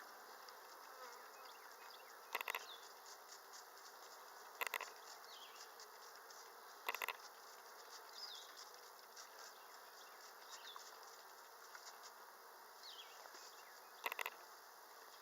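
A hive's worth of honeybees buzzing in a steady, faint hum around the open frames. Short, louder bursts break in about every two seconds in the first half and once more near the end.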